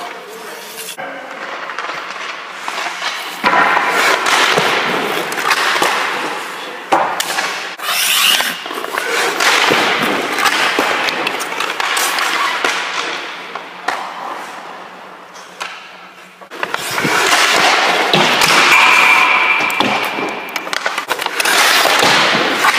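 Ice hockey skates scraping and carving on rink ice, with sharp clacks from stick and puck as shots are taken and a goalie slides across the crease.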